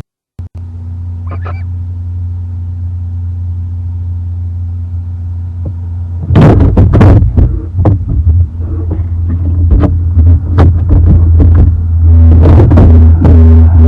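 Steady electrical hum from the nest-box microphone, with one short high owl call about a second in. From about six seconds on, an owl moving inside the wooden nest box makes a run of loud knocks, scrapes and clicks, like foot stomping on the box floor.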